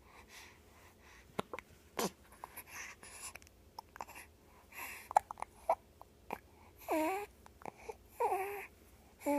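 Hiccups: sharp little hic sounds among snuffly breaths, with two short wavering cries about seven and eight seconds in.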